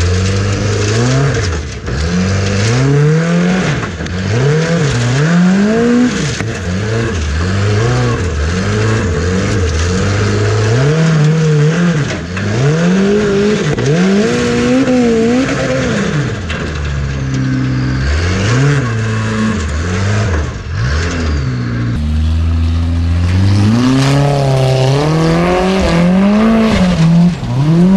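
Formula Offroad (Icelandic torfæra) Unlimited-class race car's engine revving hard and dropping back over and over, about once a second, as it claws up a steep dirt hill.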